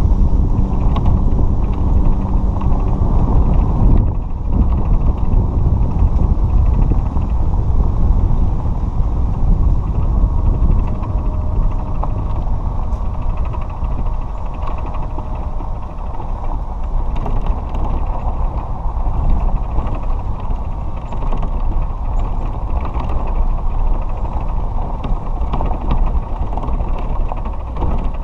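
A cart driving along a gravel road: a steady low rumble of the moving cart and its tyres on gravel, with a motor hum that stands out in the first few seconds.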